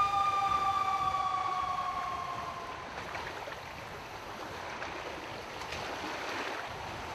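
Distant siren: a steady two-note tone that slowly falls in pitch and fades out over about three seconds, followed by a soft steady rushing noise.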